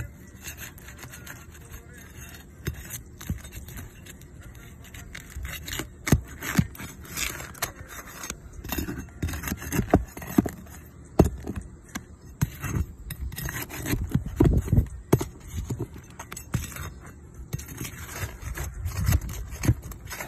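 Flat pry bar scraping and prying under asphalt roof shingles as they are worked loose, with irregular scrapes, cracks and clicks. Quiet at first, it gets busy about six seconds in.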